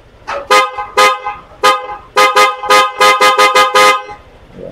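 Aftermarket twin scooter horns sounded in about a dozen short toots from the handlebar horn switch: two separate blasts in the first second, then a quick run of beeps from about two seconds in.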